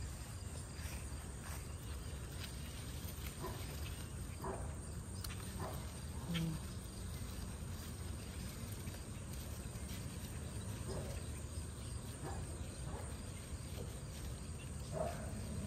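Hand pruning shears snipping yardlong bean stems now and then, with faint rustling of the vines, over a steady low rumble.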